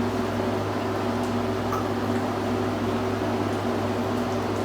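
A steady low hum with a faint, even hiss; two fainter higher tones come and go within it. No burp, bite or other distinct sound stands out.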